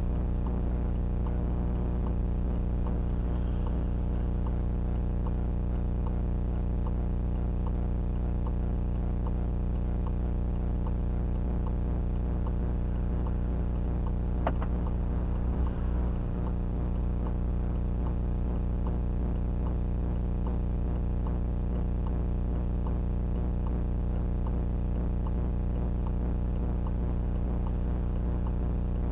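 Loud steady electrical hum and buzz recorded by a VIOFO A119S dash cam, with faint regular ticking about twice a second and one sharper click about halfway through: interference noise on the dash cam's audio track.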